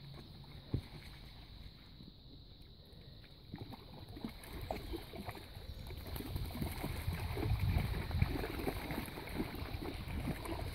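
Dogs wading and swimming in shallow pond water, a run of irregular splashes and sloshing that starts a few seconds in and grows louder about halfway through.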